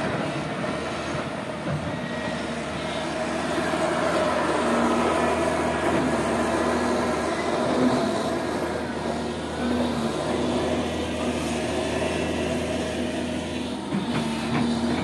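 Cat 330 GC excavator's diesel engine running under load as it digs with its hydraulics, a steady mechanical drone with a humming tone that comes and goes.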